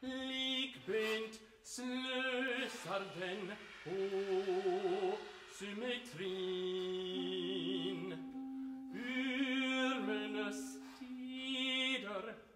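Contemporary chamber music: a baritone voice singing long held notes over overlapping sustained tones from trumpet, trombone and bass clarinet, the notes entering and breaking off in short phrases.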